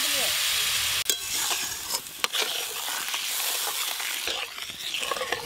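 Spice paste sizzling in hot oil in a metal kadai while a metal spatula stirs it. There is a steady hiss, and the spatula scrapes and clicks against the pan a few times between one and two and a half seconds in.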